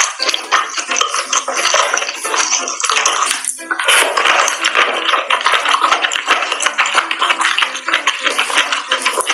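Background music over close-miked mukbang eating sounds: wet, sticky clicks and squelches of sauce-coated mushrooms and noodles lifted with tongs and chopsticks from a metal tray, then chewing.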